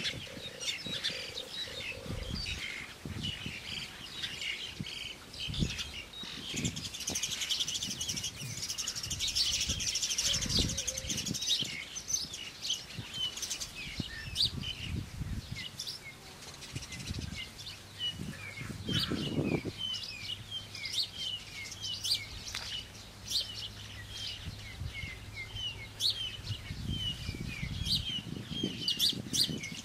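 Forest birds chirping throughout in many short calls, with a denser high twittering about seven to twelve seconds in. Under the birdsong come scattered dull knocks of wooden poles being handled and laid on a pole frame, the loudest one about nineteen seconds in.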